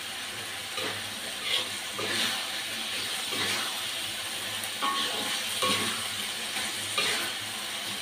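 Sambal frying in a wok over a gas flame: a steady sizzle, with a metal spatula scraping and knocking against the wok every second or so as the mixture is stirred.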